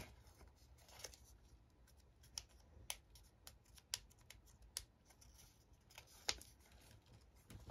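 Faint, scattered clicks and light paper rustling as fingernails pick at the edge of a paper sticker to lift it off a sticker brick.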